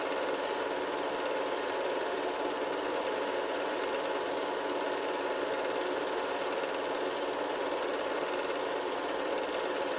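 Film projector running: a steady, fast, even whirring clatter.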